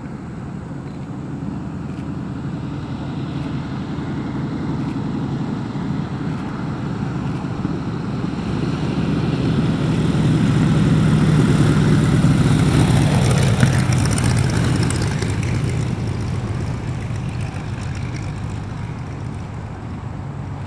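Biplane's piston engine and propeller flying low past: the drone builds steadily, is loudest about twelve seconds in, drops in pitch as the plane goes by, then fades away.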